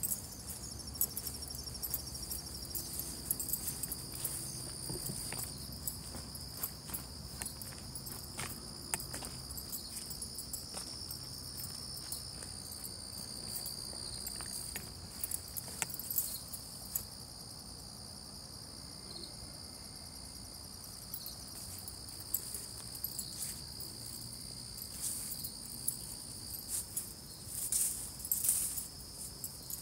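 Steady, high-pitched chorus of night insects, with scattered short clicks and scuffs that are louder near the end.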